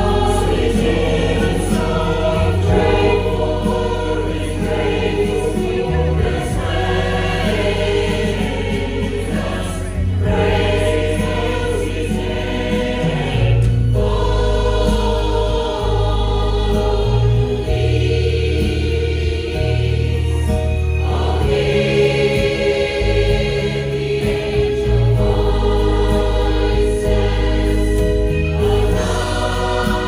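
A choir singing together over accompaniment, with sustained low bass notes that change every few seconds beneath the voices.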